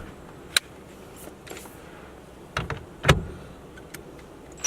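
A few sharp separate clicks and knocks, the loudest about three seconds in, from a socket wrench tightening the steering-wheel hub nut onto the steering column.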